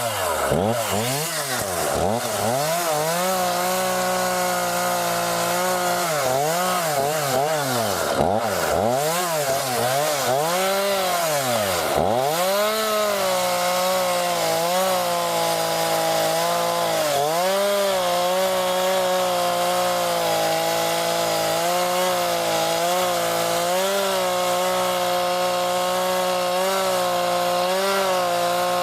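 Homelite chainsaw cutting through thick old boxwood trunks. For about the first twelve seconds the engine's pitch repeatedly rises and falls, then it holds steady at high speed with small dips as the chain bites into the wood.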